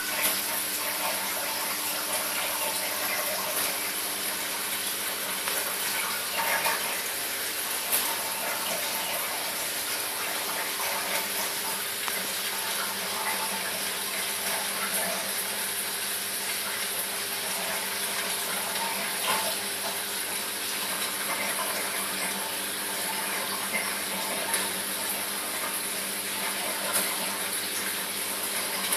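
Reef aquarium's water circulation running: a steady splashing and trickling of water, with a steady low hum beneath it.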